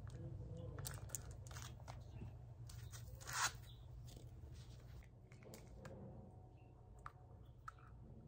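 Hands handling a small plastic case, its bead strap and packaging: scattered light clicks and rustles over a low steady hum, with one louder rustle about three and a half seconds in.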